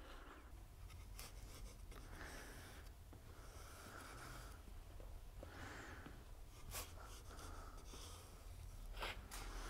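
Faint, irregular strokes of a small brush spreading glue along the slot of a cedar hive-floor rail, with a light tap about seven seconds in and another near the end.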